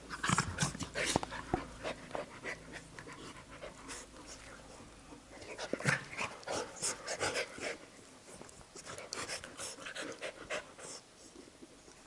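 Two Labrador retrievers, a puppy and its mother, play-wrestling: panting and scuffling, with irregular quick snaps and rustles, loudest just after the start and again about six seconds in.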